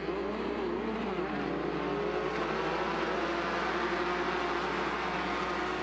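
A pack of Limited Buggies' 1600 cc Volkswagen-based engines running together at a steady pace, several engine notes overlapping with none revving out, as the field circulates bunched up under caution.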